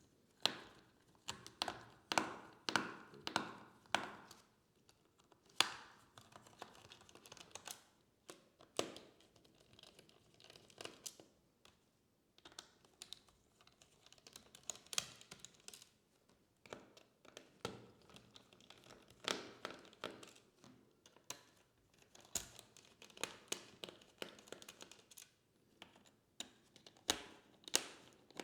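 Screwdriver taking the screws out of a laptop's bottom cover: irregular small clicks, taps and short scrapes of the bit and the loose screws, in clusters with brief pauses.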